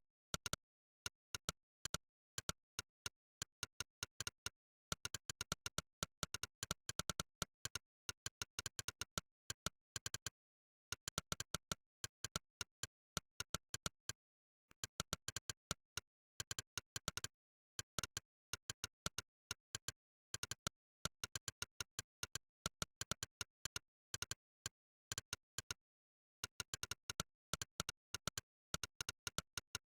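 Monkeytype's 'click' keypress sound effect: rapid sharp clicks, one per keystroke, in bursts of fast typing broken by short pauses every few seconds, with dead silence between clicks.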